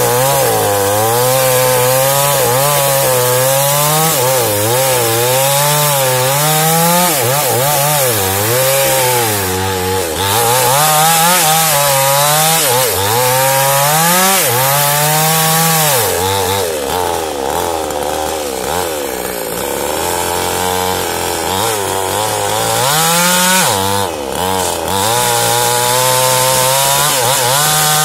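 Small New Paxton gasoline chainsaw cutting into the trunk of a jengkol tree, its engine pitch rising and falling over and over as the chain bites into the wood. For several seconds past the middle it runs lower and steadier before picking up again.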